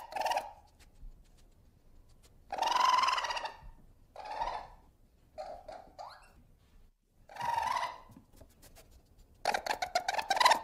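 Ferret calls: about half a dozen short, squeaky cries spaced irregularly, the longest and loudest about three seconds in, then a quick clucking chatter near the end.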